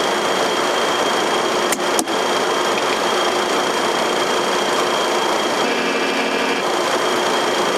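Steady rushing noise of an airliner cockpit on approach, airflow and engine noise with a thin steady high whine. Two sharp clicks come about two seconds in.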